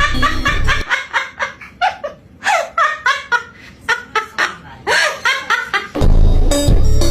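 A bird giving a quick run of short laugh-like calls, several a second. A heavy bass music beat sounds under it at the start and comes back about six seconds in.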